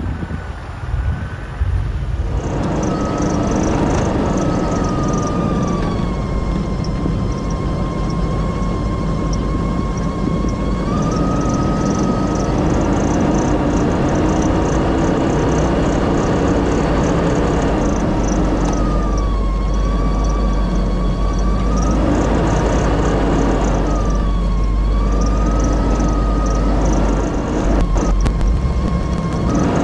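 Off-road 4x4 driving slowly along a snowy trail, heard from inside the vehicle: a steady low engine rumble under a whine that slowly rises and falls in pitch, dipping twice near the end. For the first two seconds or so, wind noise on the microphone.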